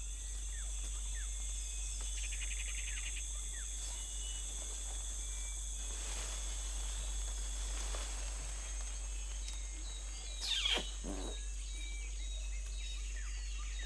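Tropical forest ambience: a steady high insect drone with scattered short bird chirps. A brief rapid trill comes about two and a half seconds in, and about ten and a half seconds in a single louder call sweeps steeply down in pitch.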